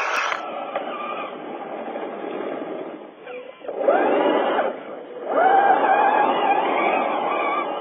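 Electric motor and gear drivetrain of a scale RC pickup truck whining as it drives over a dirt track, swelling twice as the truck pulls up and passes.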